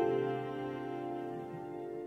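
Slow instrumental background music: a held chord slowly fading.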